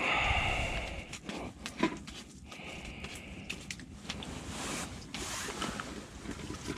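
Handling noises: a winter jacket rustling and a slimy burbot being lifted and dropped, with scattered knocks and scrapes as it flops on the ice.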